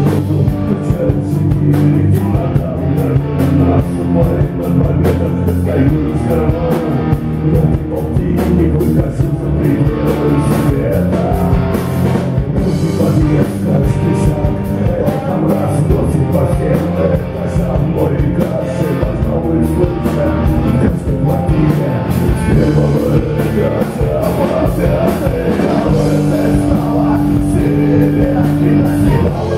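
Rock band playing live, with guitars and a drum kit.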